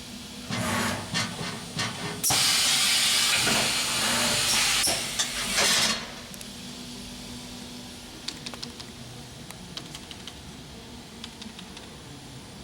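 Compressed air hissing: a few short bursts, then one loud, steady blast of about four seconds that cuts off sharply, with faint clicks afterwards.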